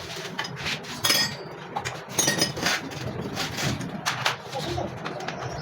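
Metal tools and parts clinking and knocking against each other in an irregular run of clinks, a few ringing briefly, as a motorcycle engine is worked on.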